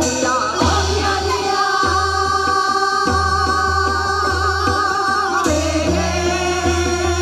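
Korean folk song (minyo) sung by a woman into a microphone over an accompaniment with a steady drum beat. She holds one long note with a wide vibrato from about a second in until past the middle.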